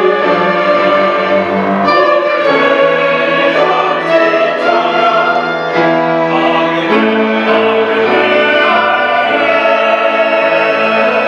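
Mixed church choir singing a hymn anthem in held chords, accompanied by a small string ensemble of violins, the chords changing every second or two.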